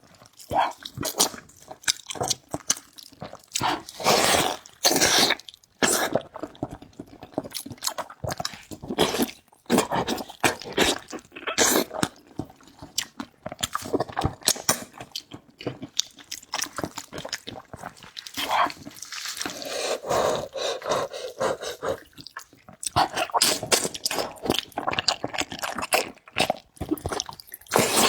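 Close-miked eating sounds: irregular wet chewing and slurping of noodles and soup, with a longer slurp about 19 seconds in.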